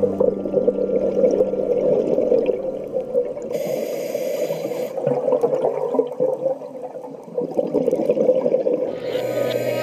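Muffled underwater water noise picked up through a phone's waterproof housing: a continuous, unevenly surging bubbling rush, with a brief hiss about four seconds in.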